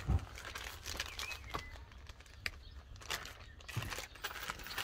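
Parts of a satellite dish kit being handled and sorted from the box: scattered light knocks, clicks and rustles.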